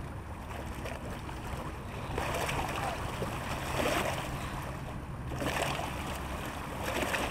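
Small lake waves washing and splashing against shoreline rocks, swelling about every second and a half.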